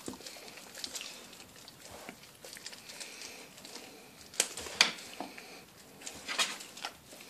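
Rhodesian ridgeback gnawing on a leg of lamb bone: irregular crunching and sharp cracks of teeth on bone, with the two loudest cracks close together about four and a half seconds in.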